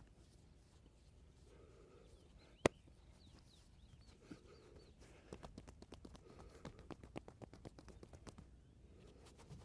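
Massage sounds: one sharp crack about two and a half seconds in, then about three seconds of quick light slaps and taps of hands on the body.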